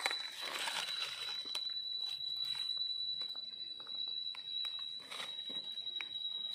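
Light rustling and scattered sharp crackles of dry leaves and twigs being stepped on and moved on the forest floor, over a steady high-pitched whine.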